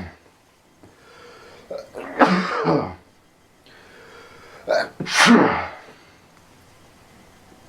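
A person sneezing loudly twice, about three seconds apart, each sneeze starting with a short sharp catch of breath before the main burst.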